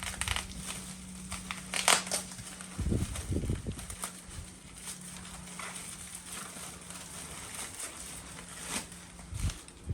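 Bubble wrap crinkling and crackling as it is pulled off a package by hand, with a couple of handling thumps and a faint steady hum underneath.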